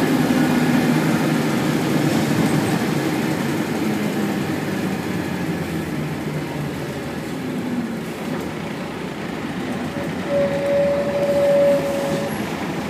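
Inside a 1995 Scania L113CRL bus on the move: its Scania DSC11 diesel engine running under the road and body noise, with the engine note and overall level falling as the bus slows. Near the end a steady single-pitched squeal sounds for about two seconds.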